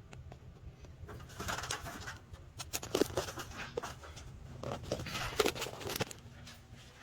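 A dove cooing: a few low coos grouped about three seconds in and again about five seconds in.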